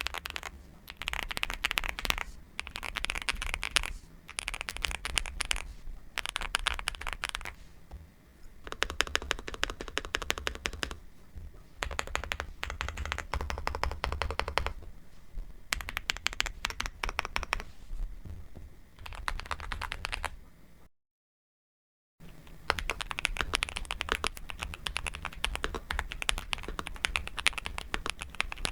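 Fast typing on a Nuphy Gem 80 mechanical keyboard, in bursts of rapid keystroke clicks a second or two long with short pauses between. The sound cuts out completely for about a second around two-thirds of the way through, then the typing starts again.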